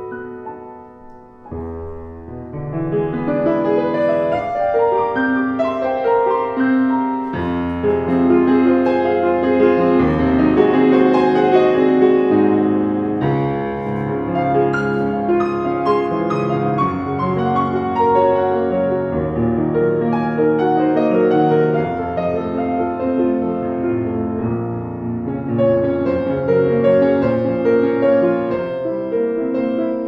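Solo piano playing a classical piece. It begins softly, then deep bass notes come in under a flowing line after about a second and a half, and the playing stays full.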